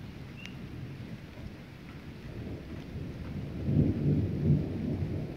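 Thunder rumbling low after a lightning flash, swelling to its loudest about four seconds in, over steady rain.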